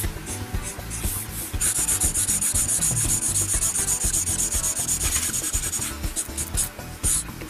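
Rapid back-and-forth strokes of a drawing tool on paper while colouring in an area. Separate scratchy strokes come first, then a dense fast run of strokes from about two seconds in to about six seconds, and then separate strokes again.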